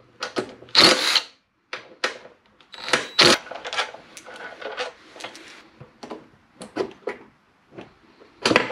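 Tool noise from unbolting the aluminium crankcase side cover of a Predator 224cc engine: short bursts from a cordless driver, then hand-tool clicks and metal clatter. A loud clack near the end comes as the cover is worked loose.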